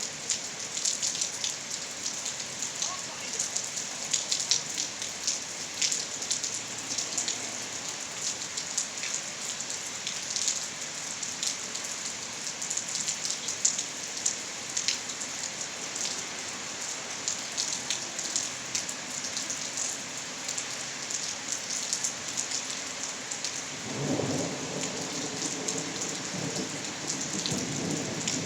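Steady rain falling, with many drops pattering on surfaces. About 24 seconds in, a low rumble of thunder sets in and is still going at the end.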